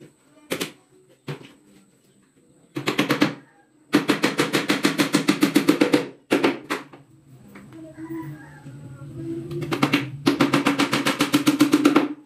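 Power drill working in bursts with a rapid rattling hammer action. There is a short burst about three seconds in, a long one from about four to six seconds, and another long one near the end. Between the last two, the motor runs with a humming whine that builds up.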